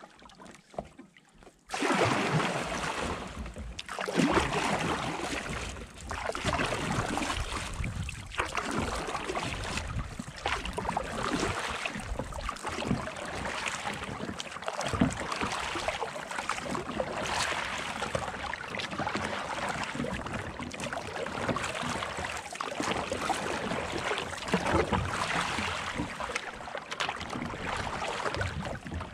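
Water splashing and lapping against the nose of a stand-up paddleboard as it is paddled across a pond. It is quieter for the first second or two, then the water sound comes in suddenly and carries on with irregular splashes.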